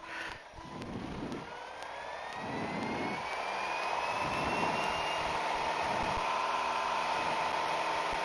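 Light airplane's piston engine being throttled up: its pitch rises and the sound grows louder over the first few seconds, then holds steady at high power.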